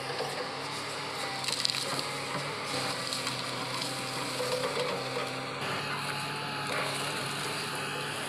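Komatsu hydraulic excavator's diesel engine running steadily under load as its bucket pushes over trees, with branches and wood cracking and splintering. A sharp crack comes about one and a half seconds in, and more cracking near the middle.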